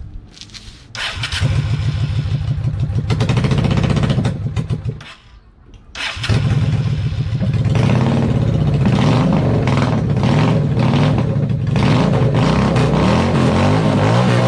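Honda VLX 600 V-twin motorcycle engine being started: it runs for about four seconds and dies, then is started again about six seconds in and keeps running.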